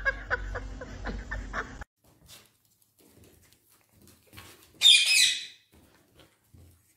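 A blue Indian ringneck parakeet gives one loud, high-pitched squawk lasting under a second, about five seconds in.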